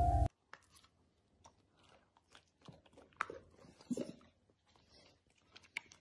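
A pet monkey eating, a scatter of faint, irregular crunches and mouth clicks as it chews its food. Background music cuts off just after the start.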